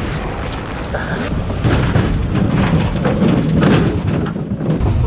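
Mini jet boat with a 1053cc Yamaha four-stroke running hard, heard on board as a heavy rumble under wind buffeting and splashing spray, with repeated sharp knocks and hits against the hull.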